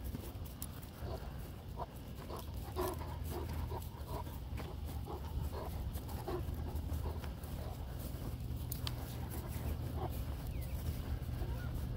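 A large dog panting quickly and rhythmically, with a steady low rumble underneath.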